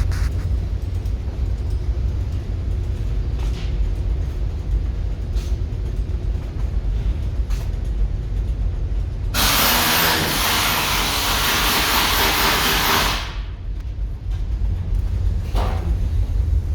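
A loud, even hiss starting about nine seconds in and lasting about four seconds before stopping abruptly, over a steady low rumble.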